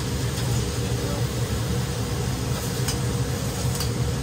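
Okonomiyaki and egg sizzling on a steel teppan griddle over a steady low hum, with two sharp clicks of metal spatulas on the griddle, about three seconds in and again near the end.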